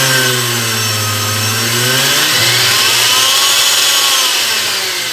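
Household blender motor running at speed, its pitch rising and falling twice. It runs without the metallic rattle it was repaired for.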